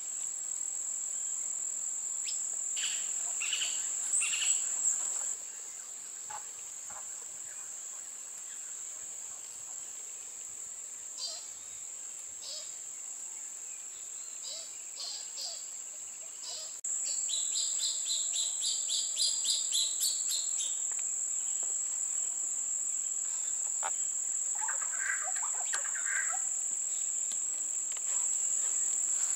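Steady, high-pitched drone of insects, with scattered wild bird calls over it, including a quick run of repeated chirps about two-thirds of the way through.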